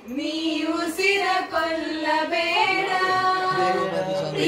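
A group of voices, mostly women's, singing a song together, with long held notes that dip and rise.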